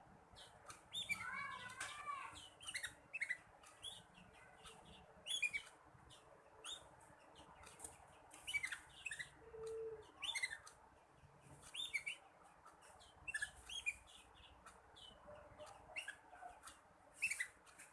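Young black-red canary twittering: scattered short, high chirps with a few brief warbled notes, the unfinished song of a juvenile canary learning to sing.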